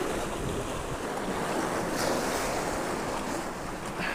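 Surf washing and breaking against jetty boulders, a steady rushing noise, with wind rumbling on the microphone.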